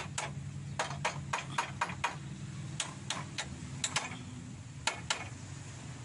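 A series of sharp knocks, about a dozen in short irregular runs of two to six, over a low steady hum.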